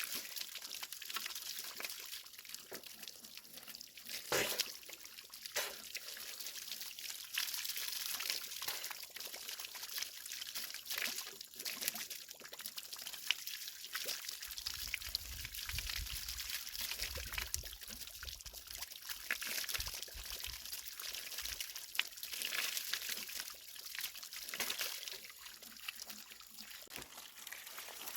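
Water running and trickling steadily, with scattered sharp knocks and clicks. A low rumble comes in from about 14 to 21 seconds in.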